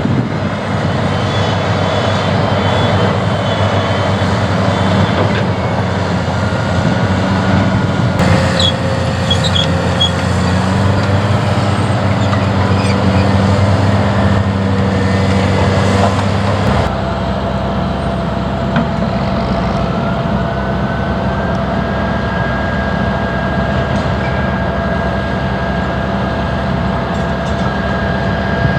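Diesel engine of a heavy Cat construction machine running steadily under work, with a few brief high squeaks about a third of the way in. The sound changes abruptly about two-thirds through.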